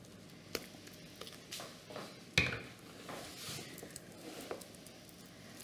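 Quiet kitchen handling: a utensil scraping and tapping as marzipan paste is put onto a frozen tart base, with scattered soft clicks and one sharper knock about two and a half seconds in.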